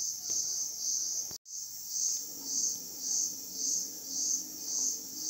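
Insects chirring outdoors in a high, even band that pulses about twice a second. The sound drops out for an instant about a second and a half in.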